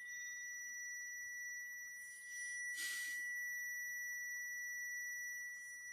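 A steady high-pitched electronic tone, like a continuous buzzer or whine, with a short hiss about three seconds in.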